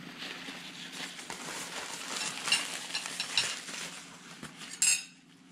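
Spoons and forks clinking and scraping on dishes during a meal, with scattered small clinks and one sharper clack just before the end.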